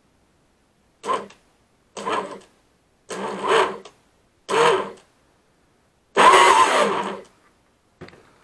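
Leopard Hobby 1800kv brushless motor of an RC boat spinning its flex shaft and propeller in short throttle blips while run dry on the bench out of water: five bursts, the pitch rising and falling within each, the last one the longest.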